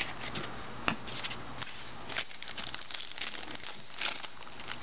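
Trading cards being handled and flipped through, with many short papery swishes and light crinkling.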